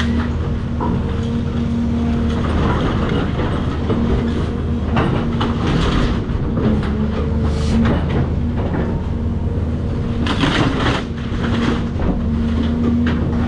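Cat 336 excavator's diesel engine running steadily, with repeated crunching and clattering of demolition debris, loudest about ten to eleven seconds in.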